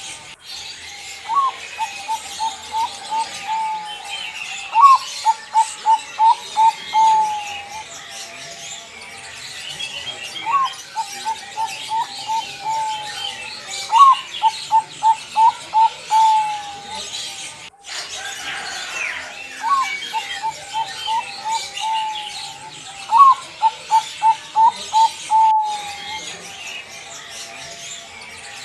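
Bangkok-type zebra dove (perkutut) cooing its song: a rising opening note, then a quick run of short staccato coos ending in a longer drawn note. The phrase repeats about six times, over faint chirping of other small birds.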